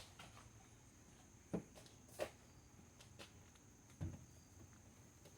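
Near silence, broken by a few faint knocks and clicks from handling parts or tools during an oil change, over a faint steady high tone.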